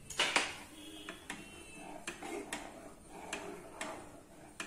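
Plastic spatula scraping and knocking against a nonstick kadhai while stirring hot milk, a series of light clicks about twice a second, the loudest just after the start.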